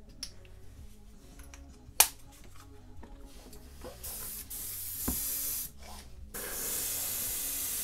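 Badger airbrush hissing as it sprays thinned acrylic base coat: an even hiss starts about four seconds in, breaks off briefly and resumes. Before it come light handling clicks and one sharp click about two seconds in.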